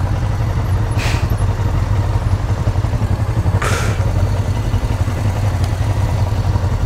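Honda CB500 motorcycle idling, its parallel-twin engine giving a low, steady, fast-pulsing beat as it creeps forward in traffic, with a second motorcycle idling alongside. Two short hisses break in, about a second in and again near four seconds.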